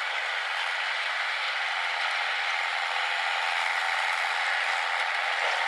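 Steady mechanical running noise of a working tractor, thin, with no low rumble.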